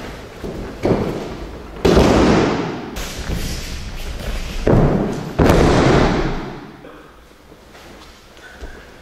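Judoka being thrown onto tatami mats: several heavy thuds with the slap of break-falls, the loudest about two seconds and five and a half seconds in, quieter after about seven seconds.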